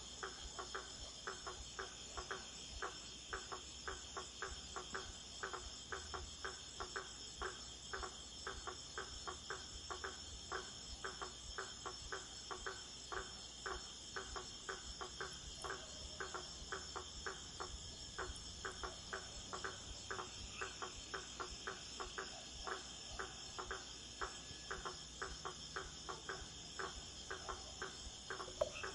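Insect chorus of crickets, a steady high trilling, with a regular clicking call of about three clicks a second running through it.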